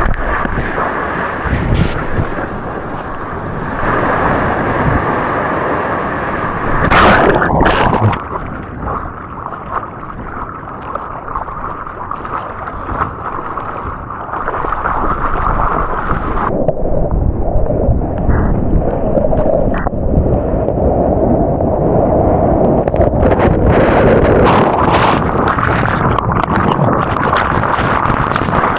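Ocean surf and rushing water with wind buffeting the microphone, loud and muffled, while surfing a wave; there is a louder surge about seven seconds in and crackling splashes near the end.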